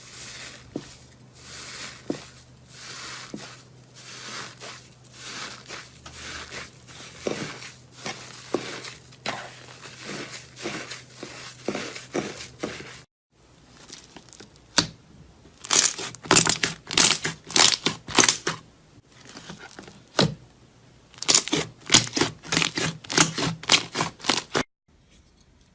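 Slime being squeezed and pressed by hand, making crinkling, crackling squishes about two a second. After a break, two louder runs of quick, sharp crackles follow.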